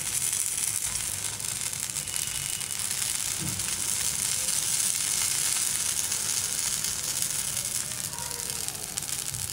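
Idli batter sizzling in the oiled cups of a hot kuzhi paniyaram pan as more batter is ladled in: a steady, high hiss.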